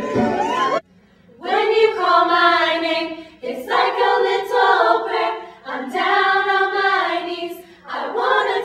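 A group of women singing together in long held notes, four phrases of about two seconds each with short breaths between. Just under a second in, other music cuts off abruptly before the singing begins.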